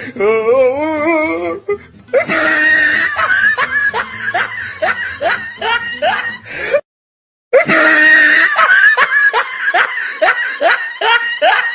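Added comic sound effects over music: a wobbling, warbling tone for about two seconds, then a rapid run of high-pitched laughter. The laughter cuts off abruptly just before the middle and starts again a moment later.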